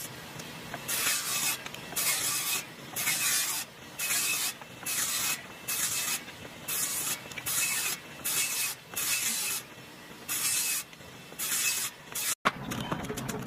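Short bursts of hissing noise, about a dozen in a row, roughly one a second, each lasting under a second.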